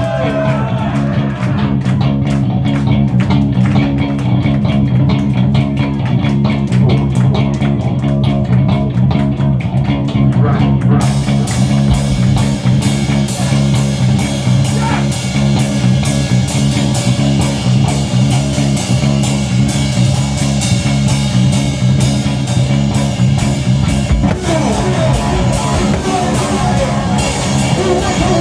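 Live noise rock from a bass-and-drums duo: a loud, steady distorted bass guitar drone under fast, dense drum-kit playing. The sound gets brighter about eleven seconds in.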